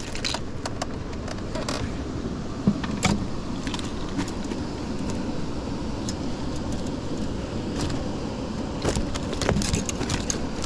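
Fishing tackle being handled aboard a small boat: scattered light clicks and small metallic clinks over a steady low rumble, the clicks growing busier near the end.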